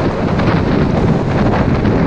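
Loud, steady wind noise buffeting the built-in microphone of a GoPro Hero5 Black mounted on the outside of a moving car.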